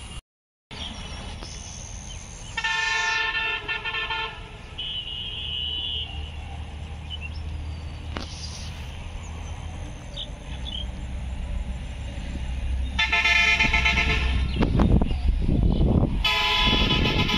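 Road vehicle horns honk three times, each blast about a second long, about three seconds in and twice near the end. Under them runs a steady low rumble of traffic that grows louder toward the end.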